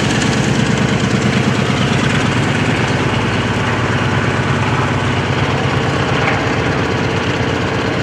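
Small piston engines of light WWII liaison aircraft (L-birds) running steadily as the planes take off and fly low past, a rapid even engine pulse that holds without a break.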